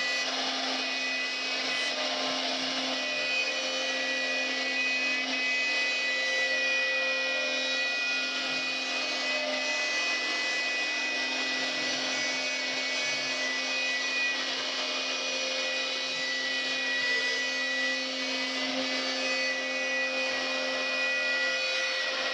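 CNC router spindle running steadily while its bit carves a wooden bed panel: an even whine with several held tones over the scratchy noise of the bit cutting the wood.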